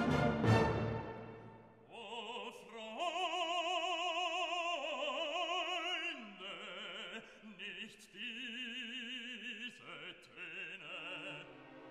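Background classical music. A full orchestral chord dies away in the first two seconds, then an operatic voice sings a series of long held notes with wide vibrato.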